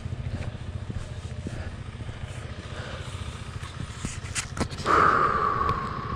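Royal Enfield Himalayan's 411 cc single-cylinder engine idling with a steady low pulse. About five seconds in, a sudden, louder ringing sound starts and fades over a little more than a second.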